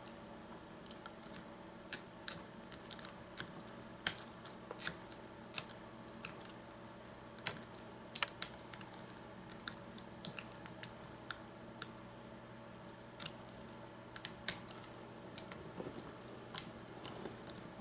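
Light metallic clicks of a lock pick working the pin stacks of an Ace rekeyable padlock during single pin picking, with a thin tension bar held in the keyway. The clicks are irregular, a few a second, with short pauses.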